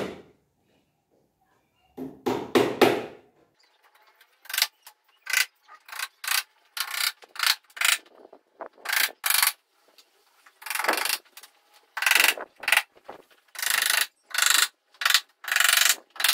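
A small hammer driving small nails into thin wooden strips to fix them onto a wooden frame: a long run of short, sharp taps, about two or three a second, starting about four seconds in. A duller, heavier knock comes about two seconds in.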